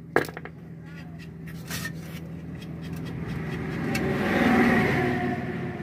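Engine oil streaming and trickling from a Royal Enfield Classic 350's drained crankcase into a steel pan, over a steady low hum. A sharp click comes right at the start, and a louder rushing noise builds and fades, peaking about four and a half seconds in.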